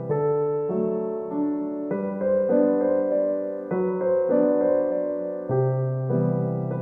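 Background music: a gentle piano tune, notes played in a slow, even rhythm with chords changing every second or so.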